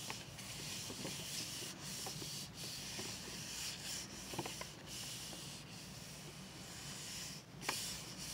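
Hands rubbing the back of a sheet of paper laid over a paint-inked printing plate, burnishing it down to transfer the paint: a steady soft papery rubbing with brief breaks and a few faint ticks.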